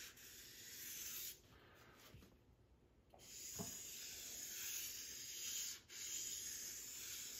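Sharpie marker tip rubbing across a foam-core board while drawing lines: a faint scratchy hiss in three long strokes, with a pause of about two seconds after the first and a brief break near the end.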